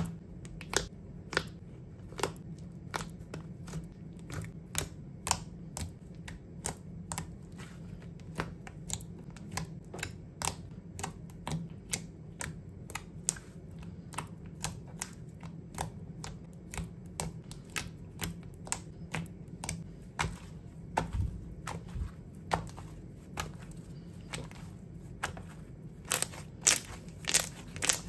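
Thick white slime being pressed and folded by hand, giving sharp clicking pops as trapped air is squeezed out, about two a second, coming faster and louder near the end.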